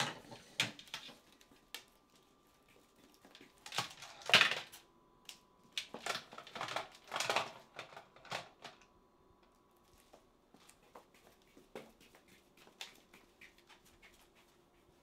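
A plastic telephone handset is fumbled on a granite countertop and set back on its base, in a string of sharp clacks and knocks. They are loudest about four seconds in, and fewer, fainter taps follow in the second half.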